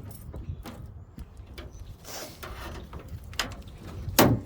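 Scattered clicks and knocks of plastic and metal as the washer's tightly fitted circuit board is worked loose by hand, with one louder knock about four seconds in.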